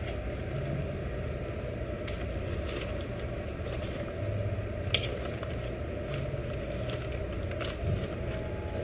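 Steady low rumble of a restaurant dining room, with a few light, sharp clicks of metal tongs and chopsticks against the tabletop grill and dishes, the loudest about five seconds in.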